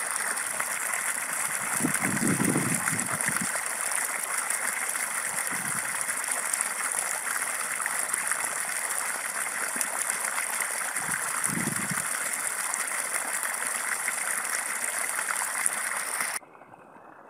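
Irrigation water gushing from a pipe outlet into a muddy furrow, a steady rush of water with a brief low surge a couple of seconds in; it cuts off suddenly near the end.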